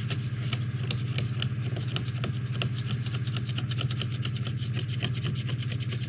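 Paper crinkling and rustling in dense, irregular crackles as paper taped to a cardboard product box is handled and pulled away, over a steady low hum.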